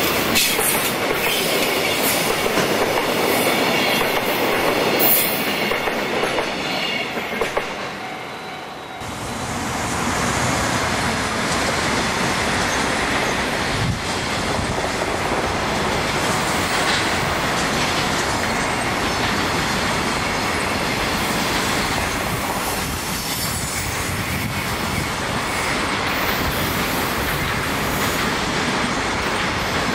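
JR Freight container train of Koki flat wagons, hauled by an EF200 electric locomotive, rolling past with steady wheel noise, clatter over rail joints and some wheel squeal. The sound dips briefly about nine seconds in, then the passing resumes.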